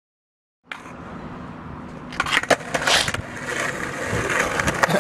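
Silence at first, then a skateboard rolling on pavement with a quick run of sharp clacks from the board about two to three seconds in.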